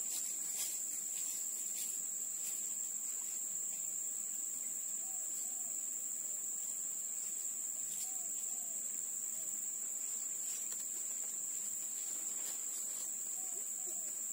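Steady high-pitched insect chorus, unbroken, with a few faint short calls rising and falling here and there.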